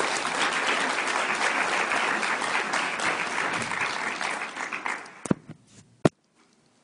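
Audience applauding, dying away about five seconds in, followed by two sharp knocks near the end.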